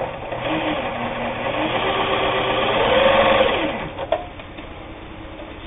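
Kenmore 158.19802 sewing machine running a straight-stitch seam, speeding up, then slowing to a stop nearly four seconds in. A single sharp click follows shortly after.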